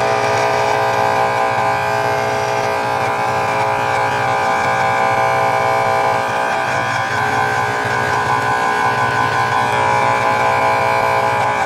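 Corded Scarlett SC-167 electric hair clipper running with a steady buzz as it is worked along the beard and jaw.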